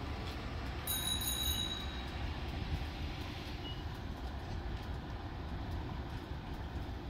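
Low, steady rumble of a tram approaching slowly along street-running track, with a brief high-pitched ringing tone about a second in.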